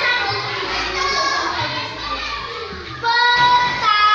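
A young girl's voice declaiming in a melodic, chant-like delivery, moving into long held notes about three seconds in.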